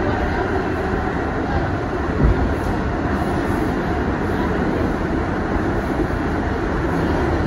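R62A subway car running at speed through a tunnel, heard from inside: a steady rumble of wheels on rail, with a single thump a little over two seconds in.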